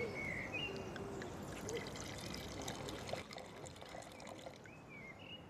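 Red wine poured from a bottle into a stemmed wine glass: a faint liquid trickle.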